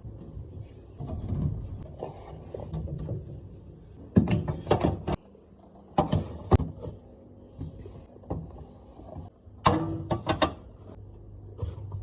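Containers and food items being moved and set down while a fridge is arranged: bursts of knocks and clatters about four, six and ten seconds in, with light rustling between.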